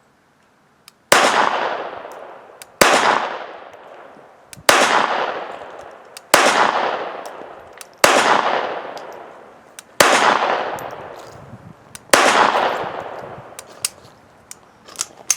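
Seven shots from a Beretta 21A Bobcat .22 LR pocket pistol firing high-velocity CCI Mini-Mag 36-grain copper-plated hollow points, spaced about two seconds apart, each followed by a long echo; every round cycles the slide without a malfunction. A few light clicks near the end.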